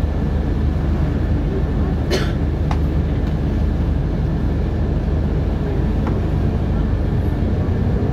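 Scania articulated bus running, heard from inside the passenger cabin: a steady low engine and road drone, with a brief sharp noise about two seconds in and a couple of faint clicks later.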